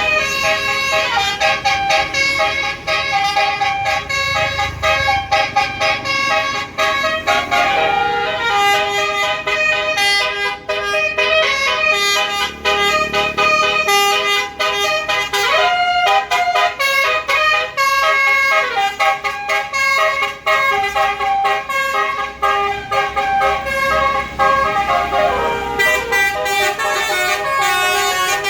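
A tour bus's basuri telolet horn playing a fast melody of short, changing notes, sounding without a break.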